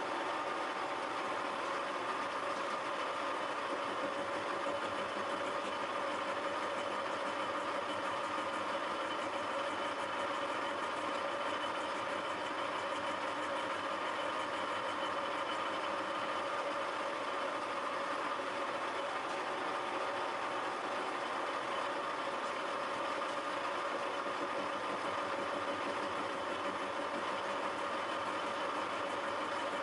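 Milling machine running steadily, its involute gear cutter spinning while the teeth of a brass worm wheel are gashed: an even mechanical hum with a few steady tones.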